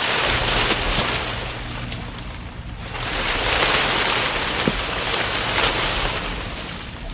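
Leafy branches of a mango tree rustling as the tree is shaken by hand, in two long surges with a few light knocks among them.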